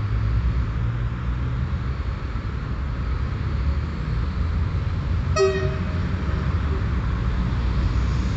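Short single horn blast from an approaching PKP Intercity Pendolino (ED250) high-speed electric train, about five seconds in, over a steady low rumble.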